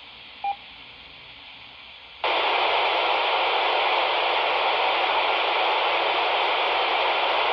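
Handheld FM amateur radio's speaker giving a short beep, then about two seconds in a loud, steady rush of static hiss as the receiver opens on a carrier or noise with no voice on it.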